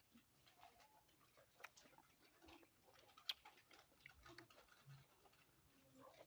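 Near silence with faint, scattered mouth clicks and chewing sounds from someone eating sweet lime, and one sharper click about three seconds in.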